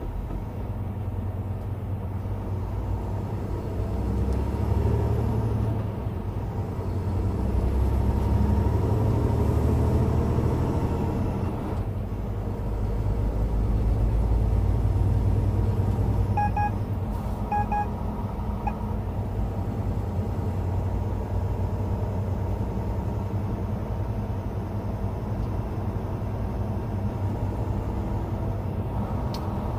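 Steady engine and road rumble heard inside a truck's cab while driving on a highway, swelling louder three times as it goes. Two quick double beeps sound a little over halfway through.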